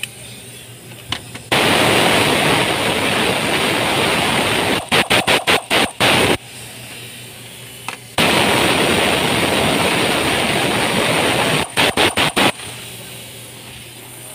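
Air ratchet running with a loud hiss while tightening a fastener on top of the engine. It runs twice for about three and a half seconds, and each run ends in about five short trigger bursts as the fastener snugs down.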